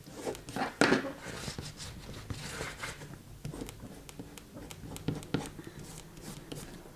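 Rustling and light knocks of paper and cardboard being handled and pressed during glue-up, the sharpest knock about a second in.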